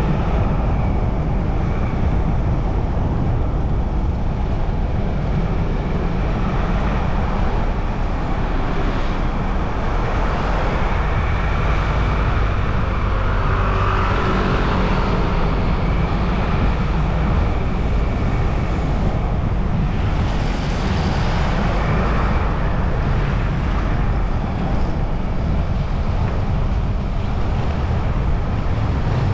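Steady road and wind noise of a moving car, with a heavy low rumble. The noise swells briefly about halfway through and again about two-thirds in.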